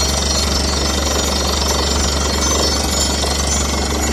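A loud, steady mechanical clatter with a deep, constant low hum underneath, like a motor running close by.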